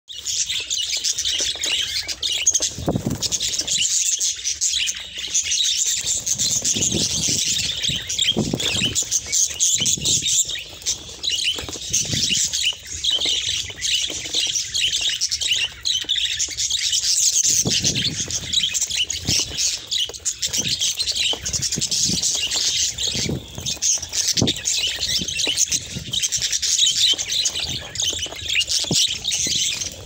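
A flock of budgerigars chattering without a break, a dense warble of high chirps and squawks, with low wing flaps now and then.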